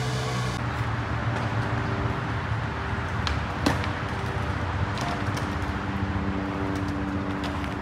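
Outdoor city ambience: steady traffic rumble from a nearby road, with a few sharp clacks, the loudest a little under four seconds in.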